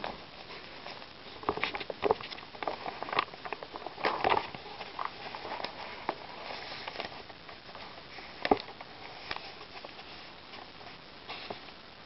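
Pages of an old, worn book being lifted and turned: irregular paper crackles and rustles, busiest in the first few seconds, with one sharper snap past the middle.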